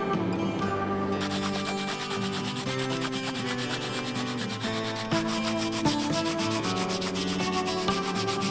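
Sandpaper rubbed by hand over a torch-charred wooden handle, in quick back-and-forth scratching strokes that start about a second in.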